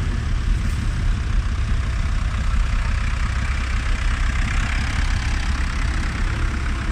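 Ford tractor engine running steadily at low revs as the tractor pulls a loaded passenger trailer slowly past close by.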